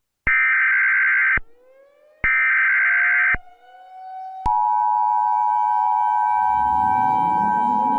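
Emergency Alert System tones: two harsh, screeching digital SAME header data bursts, each about a second long with a second's gap, then about four and a half seconds in the steady two-tone EAS attention signal starts and holds. A low rumble comes in under the tone near the end.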